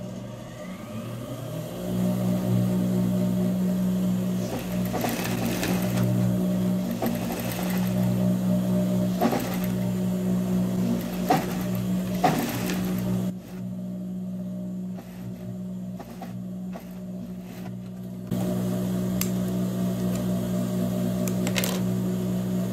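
Industrial straight-stitch sewing machine sewing through denim at a side seam: a steady motor hum starts about two seconds in, drops back for a few seconds past the middle and picks up again near the end. A few sharp clicks sound over it.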